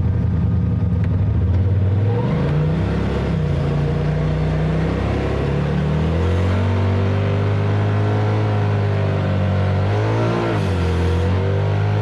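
Off-road vehicle's engine driving under varying throttle, its pitch rising and falling. It climbs about two seconds in, drops back, climbs again and holds steady, then dips briefly near the end before picking up.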